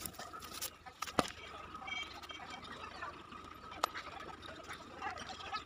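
Faint background noise with a few sharp clicks or knocks: one just after the start, a louder one about a second in, and another near four seconds.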